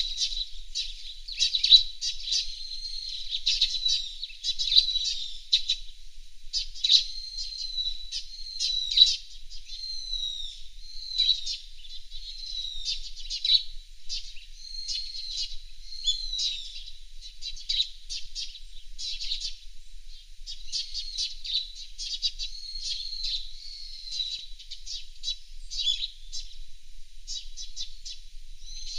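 Fairywrens singing and chirping without pause: quick high-pitched trills, sharp chips and short slurred whistles.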